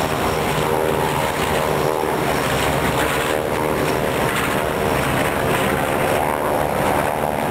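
A propeller airplane's engine running steadily and loudly, with a constant pitched drone.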